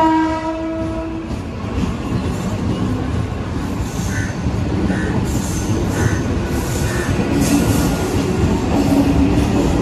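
Mumbai suburban EMU local train: a horn sounds for about a second at the start, then the coaches rumble and clack over the rails as they run past, with short wheel squeals, getting louder toward the end.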